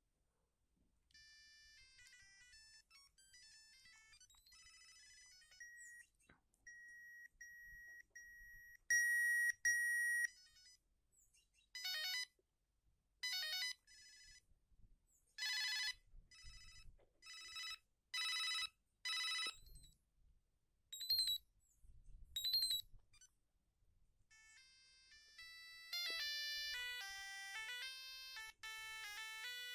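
Siemens A50 mobile phone ringtones played one after another. First a short stepping melody, then a run of repeated beeps on one pitch, then six short trilling bursts. Two rising chirps follow, and a busier melody starts a few seconds before the end.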